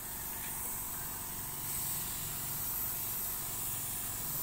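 Spray gun hissing steadily as it sprays melamine wood finish, with a low steady machine hum underneath.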